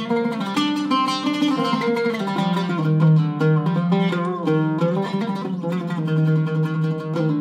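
Iraqi-style oud with a cedar soundboard and red Aquila strings, played solo with a plectrum: a quick melodic passage of plucked notes, with low notes ringing underneath.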